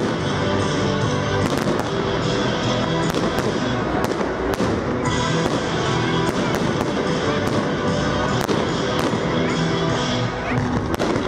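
Fireworks going off in a musical display: sharp bangs and cracks at irregular intervals, several a second at times, over loud music played for the show.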